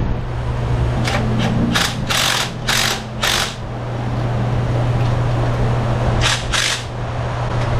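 A ratchet running nuts onto the converter-to-exhaust-manifold studs in short bursts: six quick runs in the first few seconds, then two more near the end, over a steady low shop hum.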